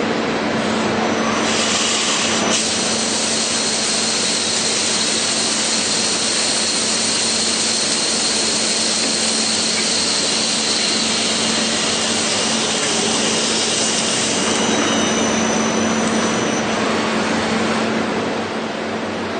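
CNC machine running and cutting: steady machining noise with a constant hum and a high whine, easing off slightly near the end.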